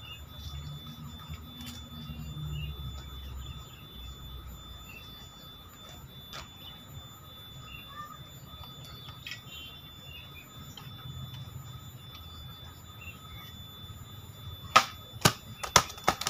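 Homemade katana slashed horizontally through an upright banana-trunk section: a loud sharp chop near the end, followed quickly by three or four more sharp knocks. Earlier there is low dull rumbling as the heavy trunk is handled.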